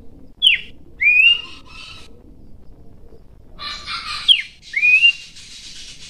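Pelanduk semak (Horsfield's babbler) singing: twice a loud two-note phrase, a quick falling whistle followed by a rising slurred whistle, with a burst of harsher chattering before the second phrase.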